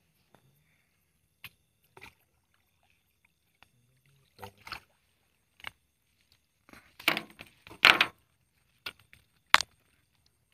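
Short, separate splashes and sloshes of water, loudest in a dense cluster about seven to eight seconds in, as a mesh net of freshly caught snails is shaken out into a plastic basin of water. A single sharp knock comes near the end.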